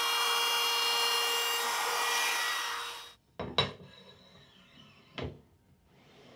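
Trim router running at speed, cutting a miter slot in a plastic tabletop, a steady high whine that stops about three seconds in. After it, a few sharp knocks and faint rubbing as a metal bar is fitted into the slot.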